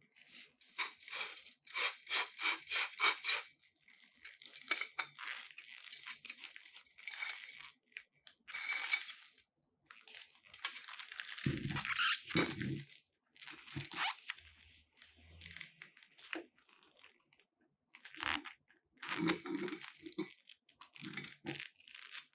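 Plastic wrapping crinkling and rustling in quick strokes as a softbox's aluminium speed ring and its thin rods are unpacked and handled, with a few dull knocks as the parts are moved.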